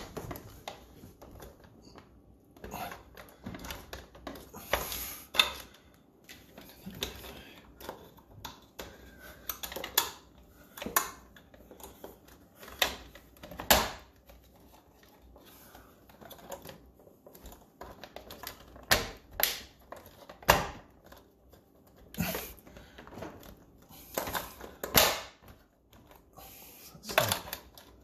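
Irregular sharp clicks, knocks and rattles of hard plastic parts being handled and pressed home. It is a fridge freezer's ice dispenser unit being worked up into its slots and clipped into place.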